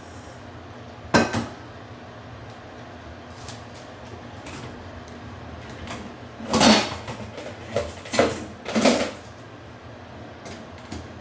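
Household knocks and clatters: one sharp knock about a second in, then a cluster of knocks and rattles a few seconds later, over a faint steady hum.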